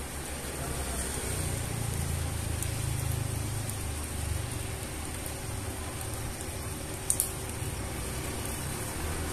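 Rain falling on wet concrete ground, a steady hiss of drops. A low rumble swells about a second in and eases off a few seconds later. A single sharp tick sounds near the end.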